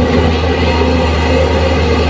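Diesel engines of hydraulic excavators running at a quarry, a steady low drone with no knocks or breaks.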